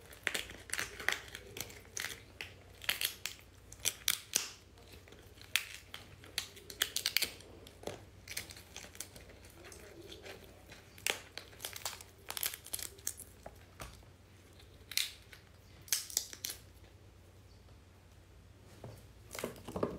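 Shell of a large cooked prawn being cracked and peeled by hand: irregular crackles, snaps and tearing as the head and shell are pulled from the meat.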